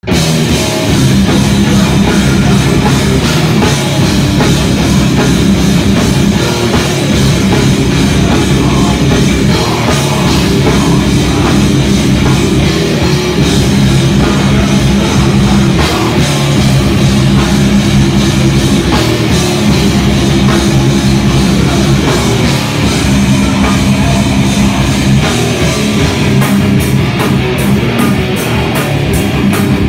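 Live hardcore band playing loud, with distorted electric guitars and a drum kit; near the end the cymbals keep a steady fast pulse.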